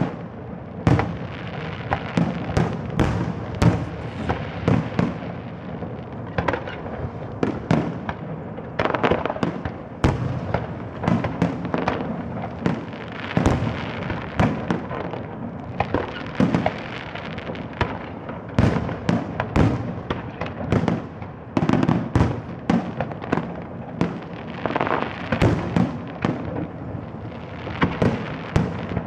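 Fireworks display: a continuous barrage of shells bursting with sharp bangs and crackles, many overlapping, echoing.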